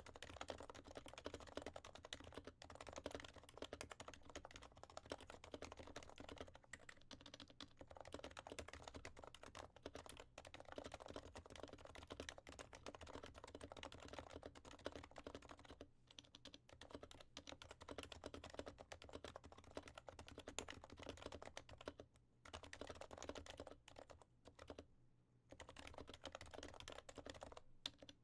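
Continuous fast typing on an HHKB Professional Classic keyboard with Topre 45g electrostatic capacitive switches, lubed and fitted with silencing rings: quiet, muted keystrokes in steady runs, broken by a few brief pauses.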